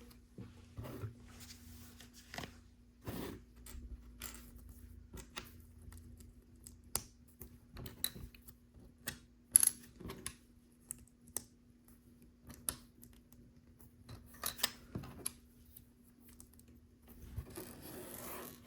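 Plastic LEGO pieces clicking and tapping as they are handled and pressed together, in scattered irregular clicks, the sharpest about ten seconds in. A rustle comes in near the end.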